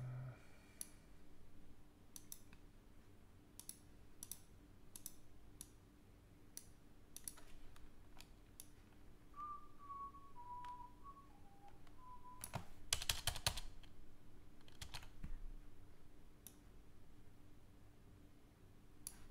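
Computer mouse clicks, one every second or so, with a quick run of keyboard typing about thirteen seconds in, the loudest part. Just before the typing come a few short, faint stepped tones.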